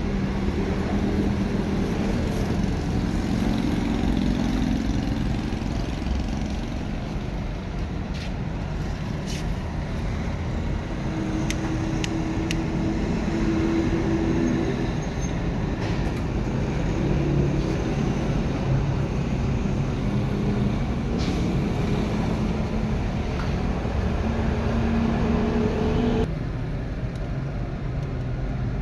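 Steady low rumble of road traffic with an engine hum that shifts in pitch, a few light clicks, and a slight drop in level near the end.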